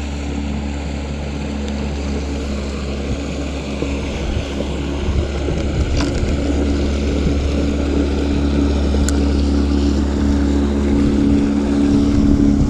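Motorboat engine running steadily with a low, even hum, growing gradually louder as the boat comes closer.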